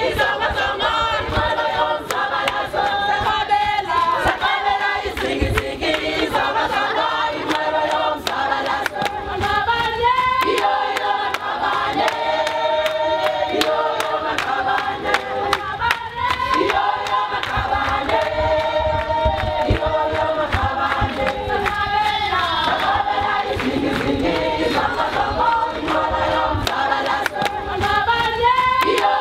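A group of voices singing a song together in harmony, with sharp clicks dotted through it.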